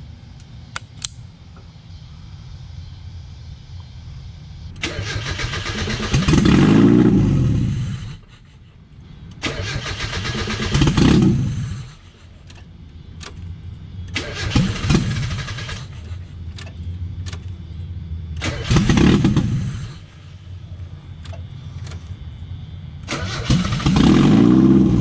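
1995 Mazda Miata engine cranked on the starter five times, each try loud for a couple of seconds as it almost catches, then stops without running. The engine wants to run but won't start, which the owner puts down to the missing intake and vacuum lines or a bad wiring connection.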